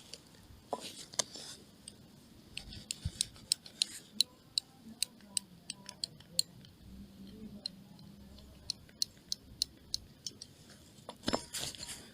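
Irregular sharp clicks and ticks, the abnormal noise from the suspension of a Nissan S15 Silvia, with a louder knock near the end.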